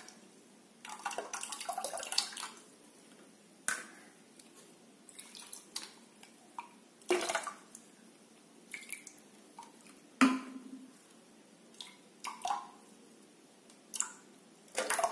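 Water swirled and poured out of a mixer-grinder jar into a pot for about a second and a half, followed by scattered drips and light knocks of the jar against the pot.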